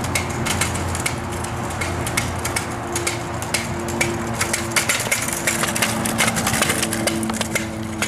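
Small plastic wheels of a child's kick scooter clattering and clicking as they roll over a concrete path, over a steady motor-like hum.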